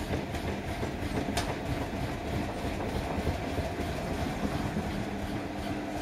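Samsung Eco Bubble front-loading washing machine running a wash cycle: the drum turns the clothes with an uneven churning over a steady motor hum. Near the end the hum shifts to a higher pitch.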